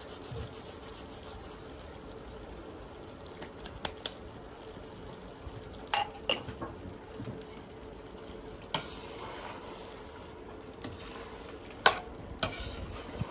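Chicken wings frying in a wok, a steady low sizzle, as a metal spatula stirs them and knocks and scrapes against the pan every second or two.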